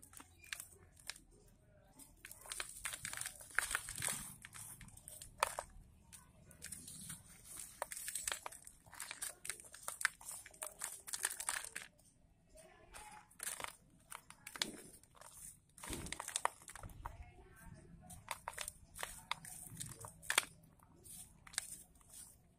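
Dry red soil clumps squeezed and crumbled by hand in a plastic tub: gritty crunching and crackling in irregular bursts, with a few short lulls.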